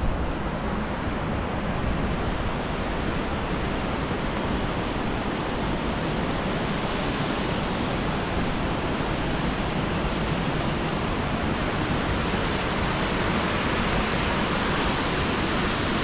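Waterfall's steady rushing water, growing slightly louder and brighter over the last few seconds.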